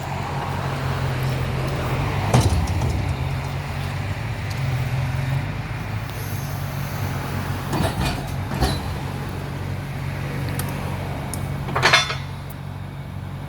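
Loader engine running steadily as it picks up a load of storm-broken wood, with a few sharp metallic clanks from the loader handling the load, the loudest near the end.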